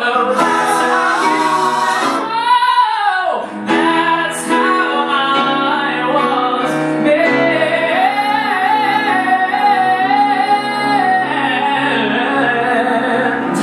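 A male singer performing a musical theatre song live with piano accompaniment, with a falling phrase early on and a long held note near the end that cuts off sharply.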